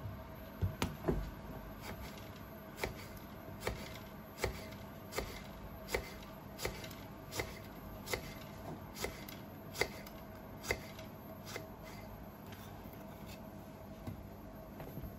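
Kitchen knife slicing a lemon half into thin slices on a plastic cutting board, each stroke ending in a sharp tap of the blade on the board, a little more than once a second in an even rhythm. A few louder knocks come in the first second or so, and the taps thin out near the end.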